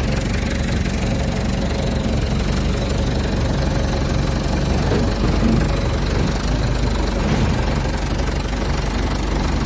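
A farm tractor's engine idling steadily throughout.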